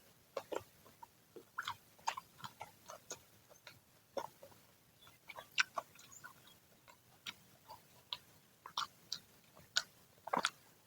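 Close-up chewing of crispy fried snacks (gorengan): irregular crunches and wet mouth clicks, a few a second, with a louder crunch near the end.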